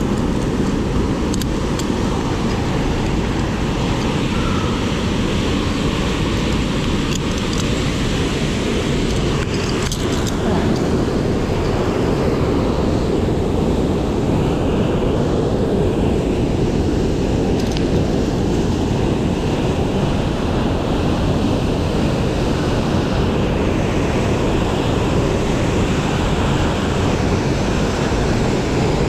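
Steady rushing of a mountain stream in a gorge: one constant, even noise with no pitch or rhythm.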